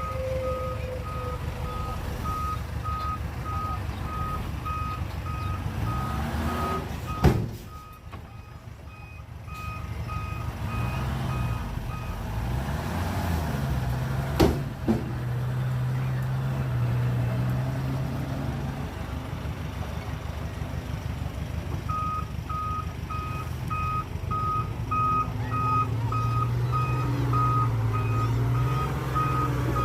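Heavy earthmoving machine's reversing alarm beeping steadily over its running diesel engine, while the machine backs up. The beeping stops about 12 seconds in and starts again about 22 seconds in, and there are two sharp knocks, at about 7 and 14 seconds.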